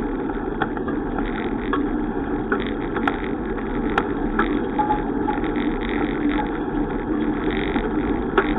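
Steady road and wind rumble of a bicycle in motion, with a faint steady hum and a few sharp clicks or rattles scattered through.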